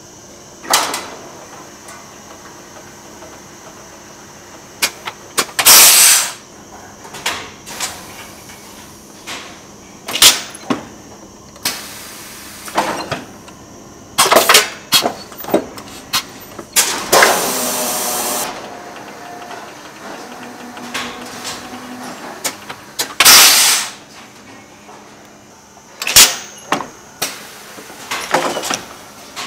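Flat knitting machine at work: irregular sharp clacks and knocks from the needles and carriage, with a longer sliding rasp a little past halfway.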